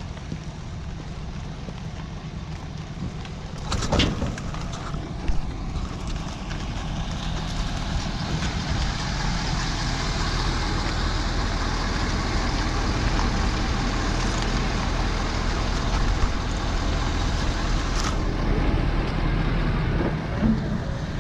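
A motor vehicle running, with a steady low rumble and rising road or wind noise from about seven seconds in. There is a single sharp knock about four seconds in.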